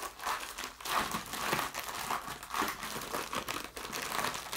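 Plastic packaging crinkling and rustling in irregular bursts as it is handled and opened to get at the instruction booklets and sticker sheet.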